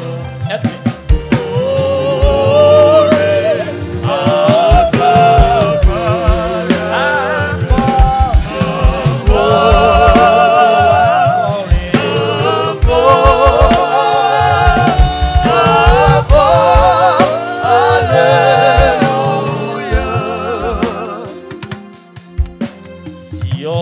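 Gospel song: singing with a wavering vibrato over a band with bass and drums, the music dropping away near the end.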